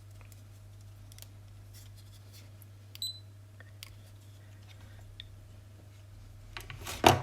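Small clicks of test probes and parts being handled over a steady low hum. A short, high electronic beep comes from the test meter about three seconds in, and a loud sharp clack comes near the end.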